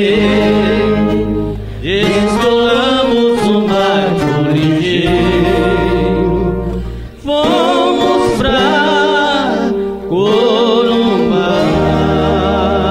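Group of violeiros singing in harmony over viola caipira accompaniment with a steady low bass, long held notes with vibrato and two short breaks between phrases: the closing bars of a sertanejo song.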